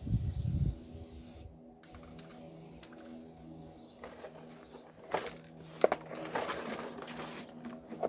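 Aerosol spray can of tractor paint hissing as it sprays, with a brief stop about a second and a half in. A few sharp knocks and clicks around five to six seconds in.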